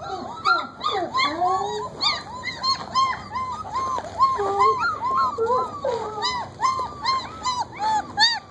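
Several 29-day-old German Shepherd puppies whimpering and whining in short, high, arching cries, about three a second, often overlapping one another.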